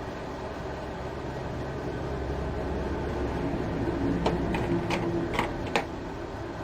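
1948 Singer Model 66-16 sewing machine running steadily on its BR electric motor, stitching; a handful of sharp clicks over the last couple of seconds before the motor stops near the end.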